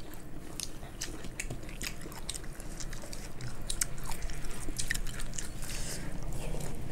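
People chewing with their mouths open while eating soft, saucy food with their fingers, with many irregular sharp smacking clicks.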